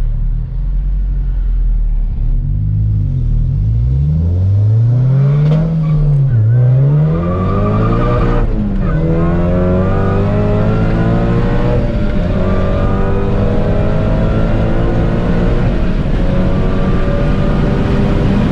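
Honda Civic Si's four-cylinder engine accelerating hard through the gears. Its pitch climbs and drops back at each of several quick upshifts in the first nine seconds, then rises slowly for the rest of the pull in a high gear.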